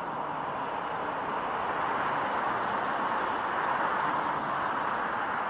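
Passing street traffic: a steady rush of tyre and engine noise that swells to a peak a few seconds in and eases off near the end.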